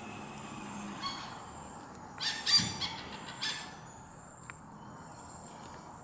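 A hornbill calling: a quick run of loud calls about two seconds in, then a single call about a second later, over a steady faint high whine.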